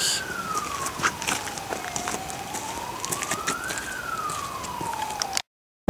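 A single siren tone wailing slowly up and down, about one rise and fall every three and a half seconds, with scattered light clicks over it. It cuts off suddenly near the end.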